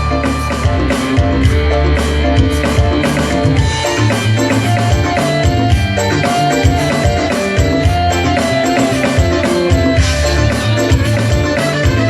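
Loud music with a driving drum beat, about three strikes a second, over heavy bass.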